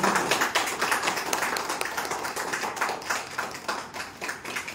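A group of people applauding, dense clapping that thins out toward the end.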